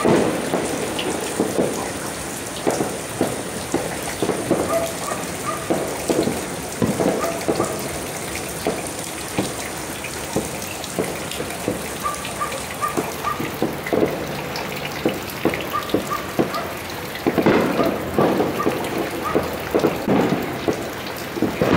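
New Year fireworks and firecrackers going off across the neighbourhood: a continuous, irregular string of pops and bangs, several a second, getting denser and louder in the last few seconds, over the steady hiss of falling rain.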